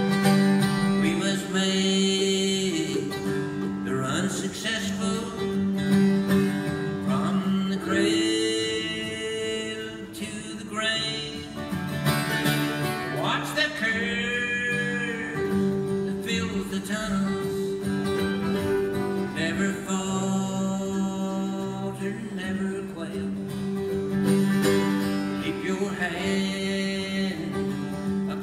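Live bluegrass duet: acoustic guitar and mandolin playing together, with a man singing the lead.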